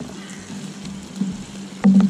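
Onions frying in a small pan on a portable gas camp stove, a steady sizzle with a low hum under it. Near the end come two sharp clacks, the tongs knocking against the pan.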